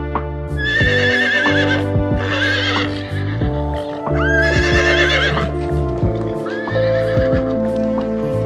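Horses whinnying, about four wavering calls a second or so each, over background music with sustained notes.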